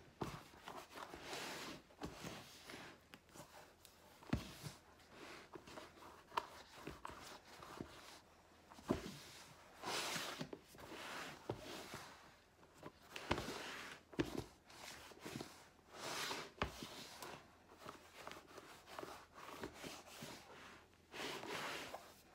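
Wooden spoon working a heavy bread dough in a large plastic mixing bowl: irregular scraping and swishing, with short dull knocks of the spoon against the bowl.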